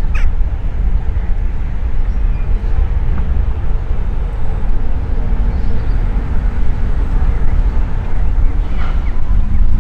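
Lancair Evolution's Pratt & Whitney PT6A turboprop running at ground idle while the aircraft taxis, a steady low rumble.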